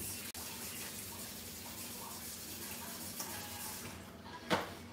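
Steady sizzling hiss of hot cooking oil in a skillet on the stove, heating before the pork chops go in, with a brief louder noise near the end.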